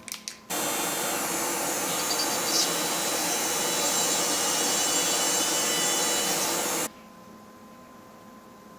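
A few clicks, then a lab machine or power tool starts abruptly, runs at an even, loud level for about six seconds with a rough grinding-or-rushing noise, and cuts off suddenly.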